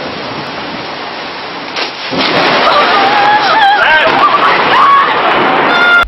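Heavy rain and storm wind hissing, growing louder about two seconds in. A wavering pitched sound rides over the noise in the second half.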